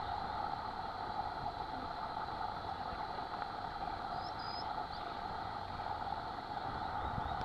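Steady, unbroken droning hum with a brief high chirp about four seconds in.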